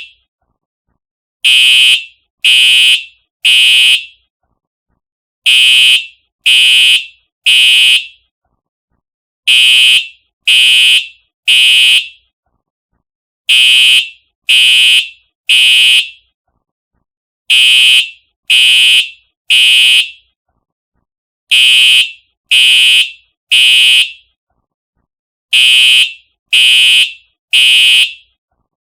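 Simplex TrueAlert electronic fire alarm horn sounding the temporal-three evacuation pattern: three short, loud blasts about a second apart, then a pause, the group repeating every four seconds.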